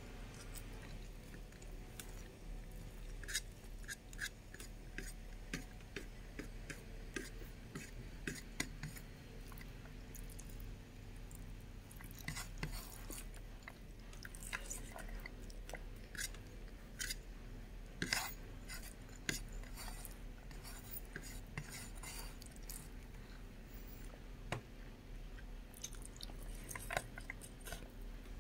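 Close-up chewing and wet mouth clicks of someone eating rice and curry with their fingers, with occasional clinks of fingers and food against a ceramic plate. A steady low hum runs underneath.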